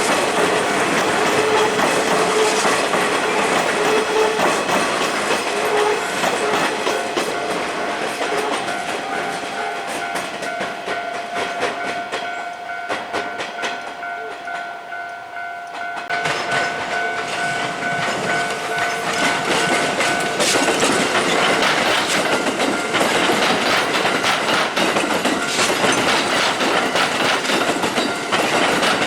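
Kintetsu electric trains running over a level crossing, their wheels clacking over the rail joints, with the crossing alarm ringing in a repeating tone. The train noise dips briefly about halfway through, then builds again.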